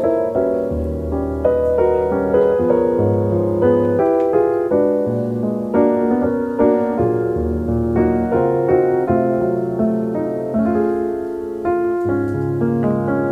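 Background piano music: a calm, steady piece of melody over held low bass notes.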